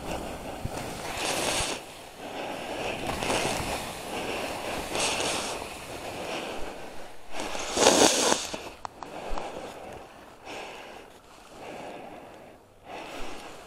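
Skis swishing and scraping through soft chopped snow, one hiss for each turn about every two seconds, the loudest about eight seconds in.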